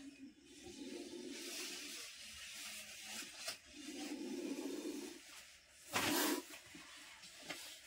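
Cobra hissing in long breaths a few seconds apart. A short, sharp burst of noise about six seconds in is louder than the hisses.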